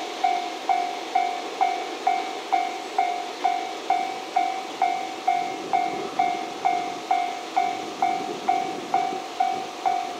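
Railway level-crossing warning bell ringing steadily, about two strikes a second, each strike a sharp single tone that dies away. A faint rumble from the freight train moving away lies under it.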